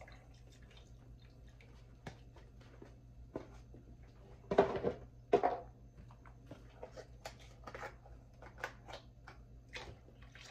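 Light clicks and handling knocks from cartons of chicken stock, with two louder knocks about halfway through. Near the end, stock starts pouring from a carton into a pot with a steady splashing hiss.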